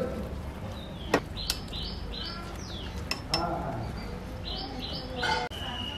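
A wire spider skimmer knocking and scraping against a large aluminium pot as rice is tipped in, with a few sharp metal clinks. Birds chirp in the background.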